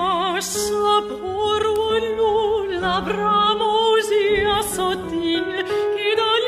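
Operatic singing: a voice holding long notes with wide vibrato over sustained chords and a low bass line that steps from note to note.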